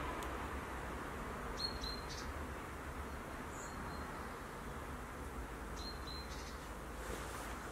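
Outdoor ambience: a steady low rumble and hiss, with two pairs of short, high chirps, about one and a half seconds in and again about six seconds in.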